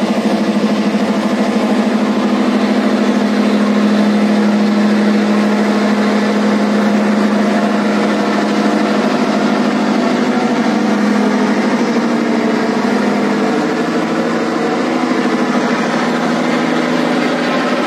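A boat's engine running steadily with a constant low hum, heard over the rush of water and wind.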